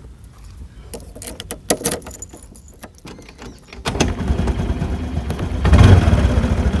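A few clicks and key rattles, then about four seconds in a motor scooter's engine starts and keeps running, briefly louder as it is revved just before six seconds.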